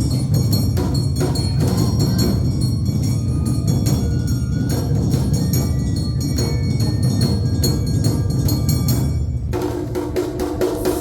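Awa Odori festival band playing: drums and a clanging hand gong keep a fast, driving beat, with ringing metallic tones above. The sound thins and changes near the end.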